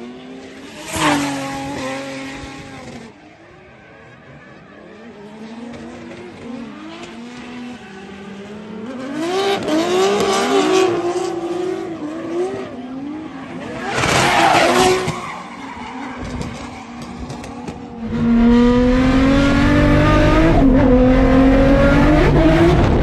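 Drift car engine revving up and down, with three loud bursts of tyre squeal as the car slides. About three-quarters of the way through, the engine becomes steady and much louder.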